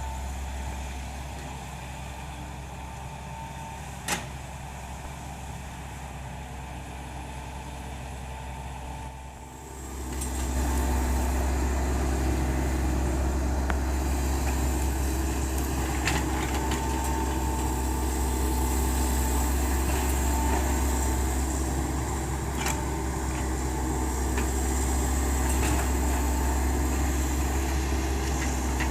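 Hitachi Zaxis 110 excavator's diesel engine running steadily, then dipping briefly about a third of the way in before coming up to a louder working speed that holds. A few sharp clicks or knocks stand out, the sharpest early on.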